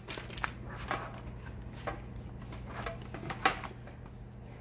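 Plastic markers and a paper activity book being handled and put into a metal tin: a run of light clicks and knocks, the sharpest about three and a half seconds in, over a faint steady low hum.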